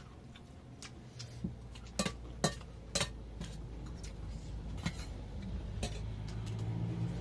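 Eating utensils clinking against dishes during a meal: three sharp clinks about two to three seconds in, then two more later.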